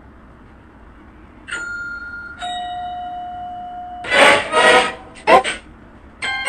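Two-note doorbell-style chime from a logo jingle: a high note about a second and a half in, then a lower, longer-held note. It is followed by a few short, loud voice-like bursts.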